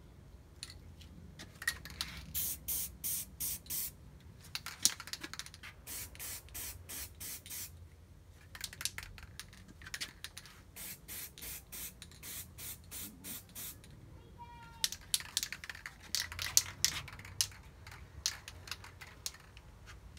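Aerosol can of spray primer being sprayed in short, quick puffs of hiss, about three a second, in four runs with brief pauses between them.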